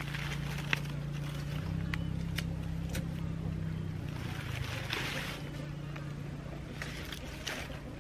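A steady low engine drone that shifts in pitch a couple of times, with a few sharp clicks and bursts of rustling on top as dry leaves are handled and lit with a lighter.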